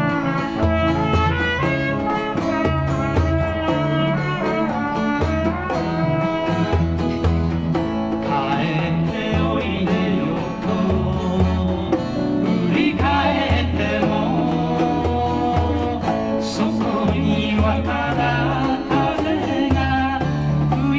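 Small live band playing a folk song: strummed acoustic guitar and electric keyboard over a steady, repeating bass line, with a wavering melody line that comes and goes in the middle.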